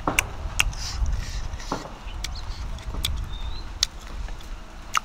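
Crunchy chewing of a raw green mango, with sharp, crisp crunches at irregular moments.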